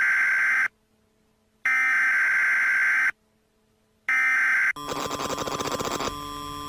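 Emergency Alert System SAME header: three bursts of screechy digital data tones, each about a second and a half long with about a second of silence between, the third cut short. About five seconds in, a harsh rattling buzz takes over, then gives way to a steady electronic tone near the end.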